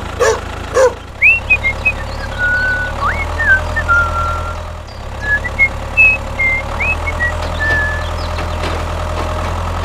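A motor running steadily with a low hum, with short high chirps and whistles over it, several of them sharply rising.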